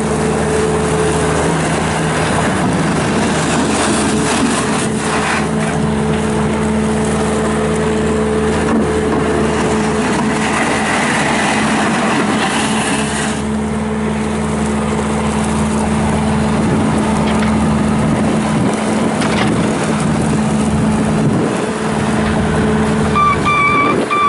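Bobcat S650 skid steer loader's Kubota diesel engine running steadily. Near the end a pulsing electronic beep starts, about two beeps a second.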